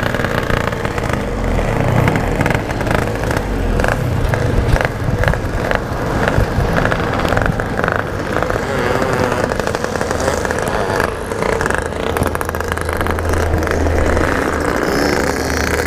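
Yamaha RX-King 135cc two-stroke motorcycle engine with a Packing Power exhaust running steadily as the bike pulls away and rides on.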